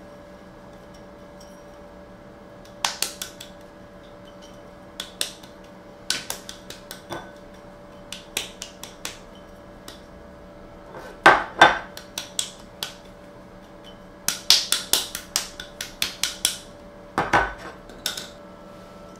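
Ceramic gratin dishes clinking and knocking on a stainless steel counter and against each other as they are handled and coated with granulated sugar. The knocks come in scattered clusters of sharp clatter, loudest a little past halfway, over a faint steady hum.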